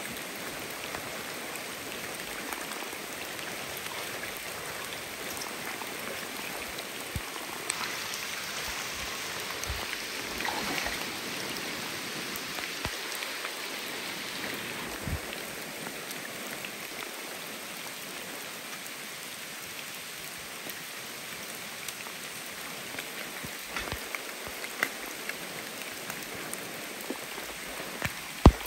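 Steady rain falling on a shallow rocky river and the wet rock around it, a little louder between about 8 and 14 seconds. A sharp knock just before the end.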